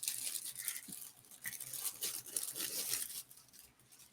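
Packaging rustling, crinkling and tearing as it is handled close to the microphone, in irregular bursts.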